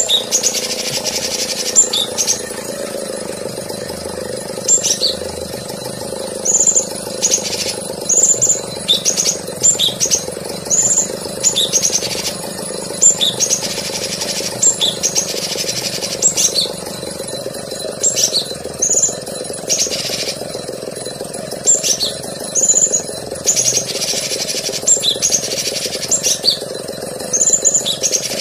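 A cucak cungkok singing a string of short, sharp, high-pitched chirps and arched whistled notes, one every half second to a second, over a steady low hum.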